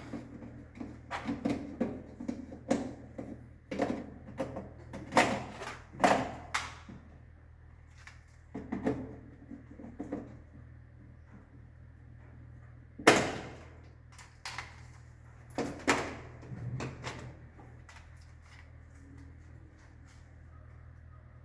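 Irregular clicks, knocks and clatters of circuit breakers being handled and fitted in a distribution board. The loudest knock comes about thirteen seconds in, and the sounds thin out after about seventeen seconds, leaving a low steady hum.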